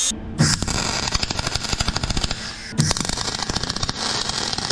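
Electric arc welding: the arc crackles steadily as a bead is laid, starting about half a second in, with a short break a little past halfway before it crackles on again.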